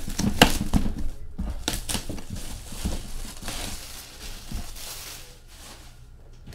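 A shrink-wrapped cardboard box being handled: a few sharp knocks as it is lifted and set down, then rustling and crinkling of the box and its plastic wrap that fades near the end.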